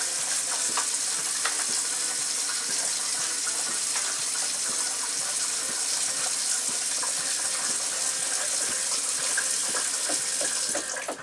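Water running from a faucet in a steady stream, then shut off near the end.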